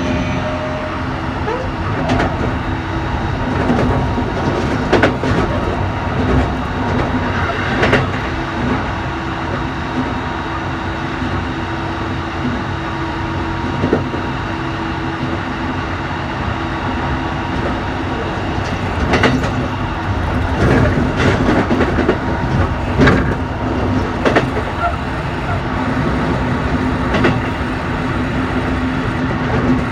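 Keikyu New 1000 series train with Toshiba IGBT-VVVF traction motors, heard from inside the car at running speed: a steady rumble and low motor and gear hum, with several sharp clacks of the wheels over rail joints.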